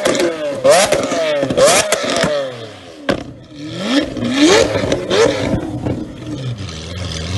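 Lamborghini Aventador LP700-4's V12 free-revving through a Frequency Intelligent (Fi) aftermarket exhaust: repeated quick rising throttle blips, each falling back with sharp exhaust pops and crackles. One loud bang comes about three seconds in, and the engine settles to a steady idle near the end.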